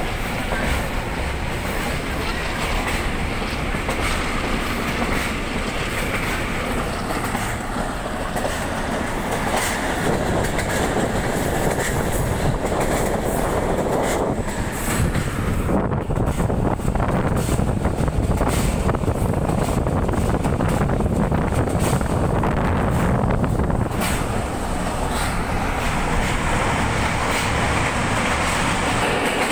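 Diesel-hauled passenger train running along the track, heard from an open coach window: a steady rumble of wheels on the rails with scattered sharp clicks from the rail joints.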